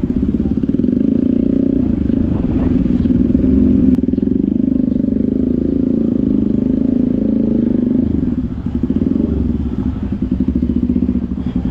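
Motorcycle engine running at low speed, heard close up from the rider's own bike, with a steady pulsing note that dips and wavers about eight seconds in as the throttle eases off and on.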